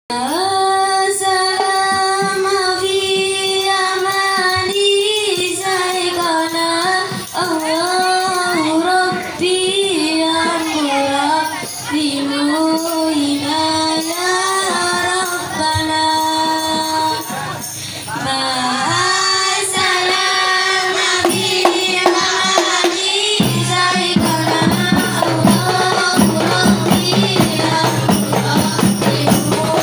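A woman sings a sholawat solo through a microphone, in long, bending notes with no beat. About three-quarters of the way in, rebana frame drums come in and play a steady rhythm.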